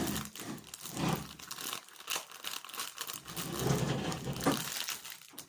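Packaging crinkling and rustling as it is handled, in irregular bursts of small crackles.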